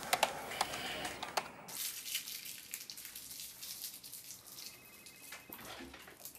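A plastic lollipop wrapper crinkling and crackling as it is pulled off in the hands, starting about two seconds in after a few sharp clicks.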